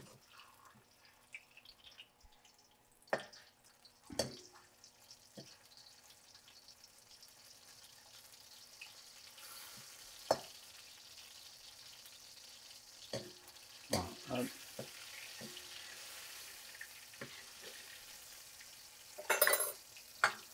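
Shrimp paste frying in hot oil in a wok, a soft sizzle that swells after a few seconds and holds. A metal skimmer knocks and scrapes against the wok now and then, with a louder clatter near the end.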